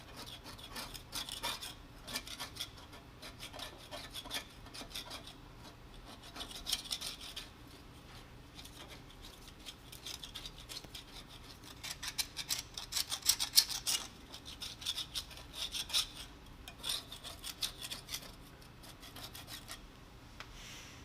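Hand scraping on a metal lathe leg, a tool working off paint softened by citrus paint stripper, in uneven runs of short rasping strokes that are busiest past the middle.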